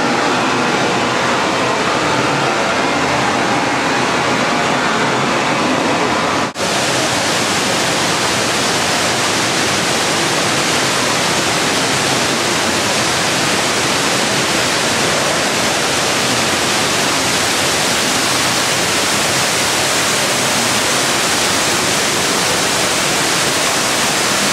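Steady, loud rush of water falling in an indoor waterfall feature, broken off for an instant about six and a half seconds in.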